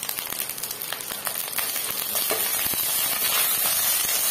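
Spices and chili powder sizzling in hot oil in a nonstick pan, stirred and scraped with a metal spatula; the sizzle grows a little louder about halfway through.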